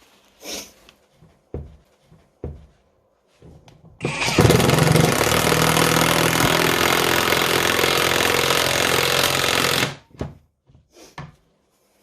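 Kimo 20V cordless impact driver hammering a wood screw into a 2x4 with no pilot hole. The impacting starts about four seconds in, runs very noisy for about six seconds and stops abruptly. A few light clicks come before it.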